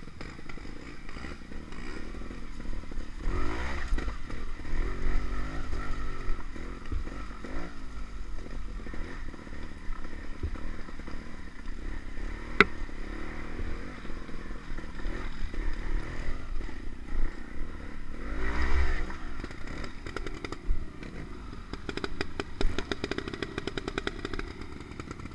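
Trials motorcycle engine heard from on the bike, revving up and down in bursts of throttle as it picks its way over a rough, muddy trail, with rattling from the bike. One sharp knock about halfway through.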